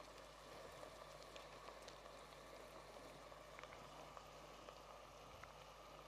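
Faint, steady sizzling and crackling of flour-coated chicken strips frying in hot oil.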